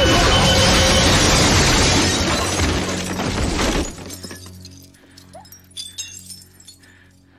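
Loud crashing and shattering in a film fight scene over dramatic score, lasting about four seconds. It then drops suddenly to a quiet, low sustained musical drone.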